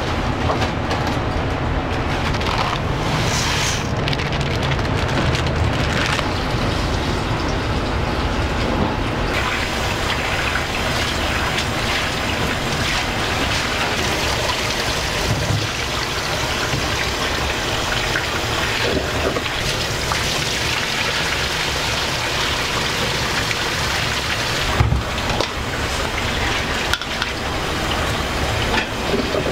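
Steady sizzling and hiss of wok cooking over a commercial gas burner, growing brighter and hissier about a third of the way in, with a sharp metallic knock near the end.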